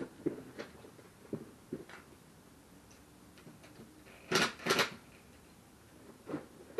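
Cordless drill-driver run in two short bursts about four and a half seconds in, driving a fastener for a handrail bracket into a concrete block wall, with light clicks and knocks of tools being handled before it.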